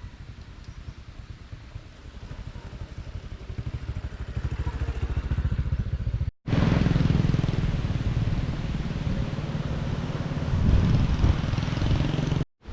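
A motor vehicle's engine running with a low, fast-pulsing rumble that grows louder through the first half. It cuts off abruptly twice: about halfway through and again near the end.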